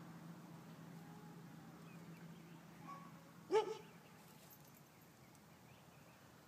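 A dog barks once, short and sharp, about halfway through, over a faint steady low hum.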